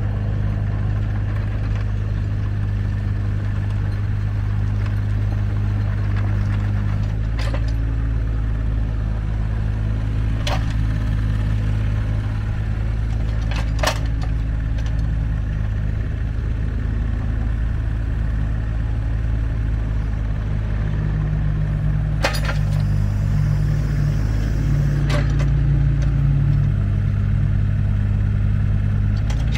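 Takeuchi TB016 mini excavator's diesel engine running steadily while the boom and bucket are worked hydraulically, its note shifting a few times as the load changes. About five sharp metallic clinks come from the digging linkage.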